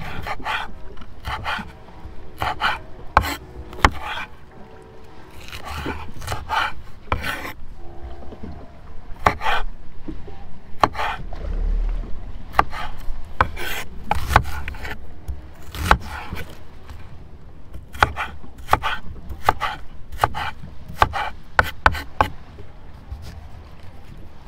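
Irregular knocks, clicks and clinks of hard gear being handled, a few with a short metallic ring, over rubbing and scraping.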